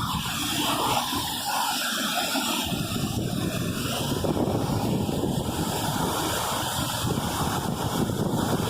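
Steady rushing noise of a waterfall, with wind buffeting the microphone.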